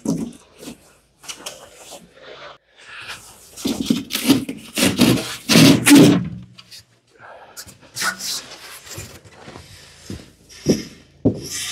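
Fabric rubbing and brushing against the microphone in irregular scuffing bursts as the camera is carried and handled, loudest about halfway through.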